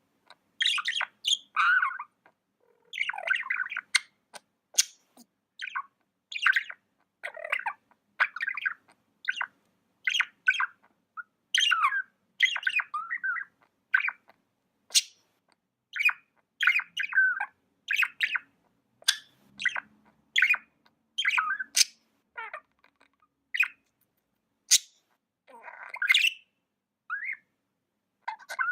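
Budgie (budgerigar) chirping and chattering: a quick, irregular run of short chirps mixed with harsher squawky notes and a few sharp clicks, with brief pauses between them.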